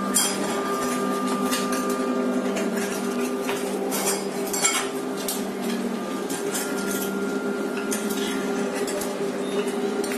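Irregular metal clinks and rattles as screws and the parts of a steel printer stand are handled and fitted together, over a steady low hum.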